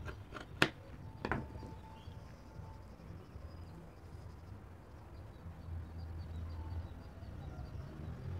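Scissors cutting through folded fabric: a few sharp snips and clicks in the first second and a half, then only faint fabric handling over a low background rumble.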